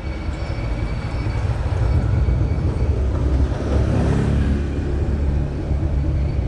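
Motorbike engine running steadily, a low hum that grows a little stronger in the middle.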